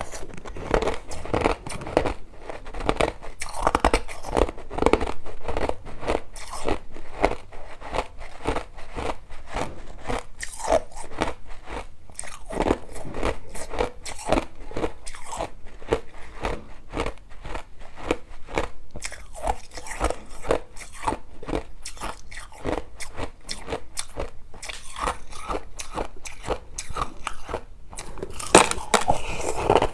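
A person chewing crushed ice, with rapid, continuous crunching as the pieces crack between the teeth, close to the microphone.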